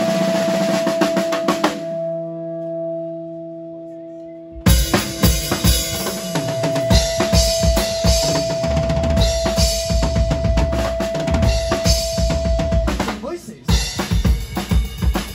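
Live rock band, drum kit with electric guitars and bass, playing loudly. About two seconds in the band stops and a held chord rings on its own, then drums and guitars crash back in about four and a half seconds in, under a steady held note. There is a brief drop near the end before the band plays on.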